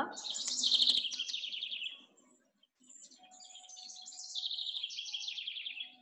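Kingfisher call: two runs of rapid, shrill, high repeated notes. The first lasts about two seconds; after a short pause the second starts about three seconds in and runs almost to the end.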